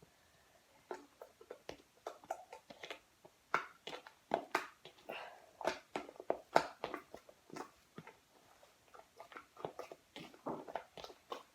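Homemade shaving-foam slime, still a little sticky, being squeezed and kneaded by hand, giving irregular wet squelches and small sticky pops.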